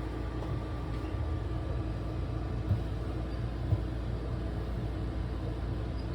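A steady low rumble, with two soft knocks about three and four seconds in.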